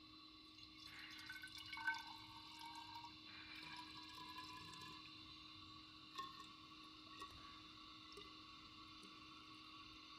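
Faint sound of water pouring from an upturned plastic water bottle into the neck of a glass sauce bottle, filling the near-empty bottle.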